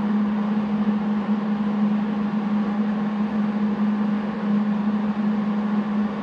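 Steady electrical hum from a MIG welder that is switched on and idling between welds, with a faint hiss above it and no arc running.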